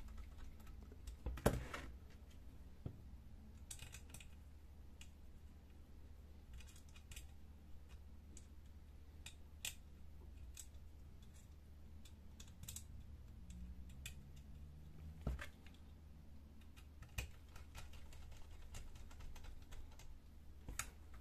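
Screws being driven into the metal panel of a laser printer fuser with a screwdriver: scattered small clicks and ticks, with a sharper knock about a second and a half in and another near fifteen seconds in.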